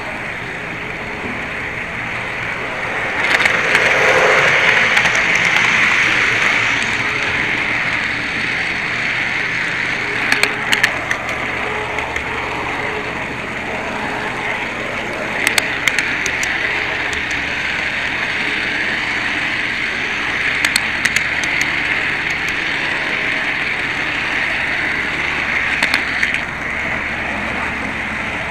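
HO scale model train running along the track, its wheels rolling on the rails in a steady whirring rumble that swells for a few seconds near the start. A few sharp clicks come in small clusters.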